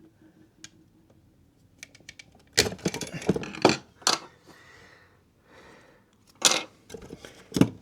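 Scattered clicks and knocks of a wall socket's front cover being taken off and handled, with faint rustling between them.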